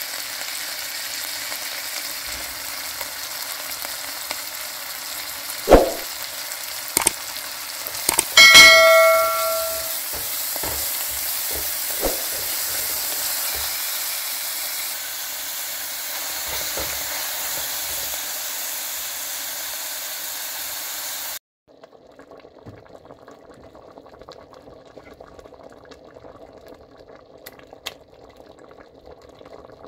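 Chopped coriander and garlic sizzling in olive oil in a stainless-steel pot, with a few knocks against the pot and one clear metallic ring about eight seconds in that dies away over a second. About two-thirds of the way through it cuts off to a much quieter pot of lentil soup bubbling at the boil.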